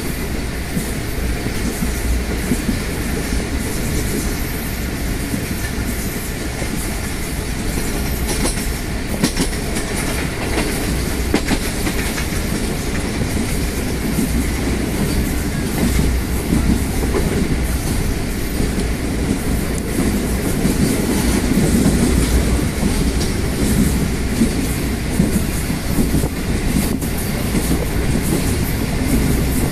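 Train running along the line, heard from on board: a steady rumble with repeated short clacks of the wheels over the rail joints.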